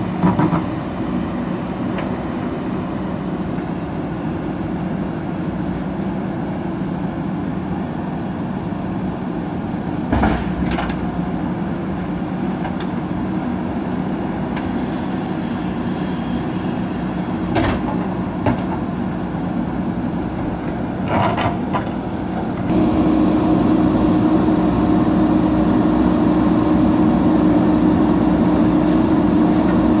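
JCB backhoe loaders' diesel engines running steadily, with a few brief knocks as the buckets work the concrete slab. About three quarters of the way through, an engine revs up and runs louder with a strong steady note, under the load of lifting the slab.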